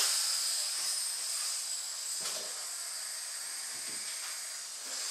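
Air rushing out of an inflated balloon through the drinking-straw jets of a home-made balloon-powered helicopter: a steady hiss that starts suddenly as it is let go and slowly weakens until it stops about five seconds in, with a soft knock a little after two seconds. The jets carry too little pressure to spin the rotor fast enough to lift.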